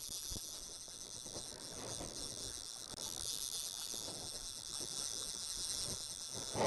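Steady high-pitched chirring of insects in the bankside grass.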